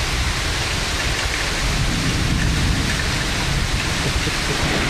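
Heavy thunderstorm downpour: rain falling steadily and hard, with a continuous low rumble beneath it.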